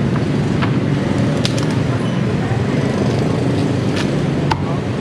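Steady street traffic rumble, with a few sharp, irregular chops of a cleaver cutting through roast pork into a wooden chopping block.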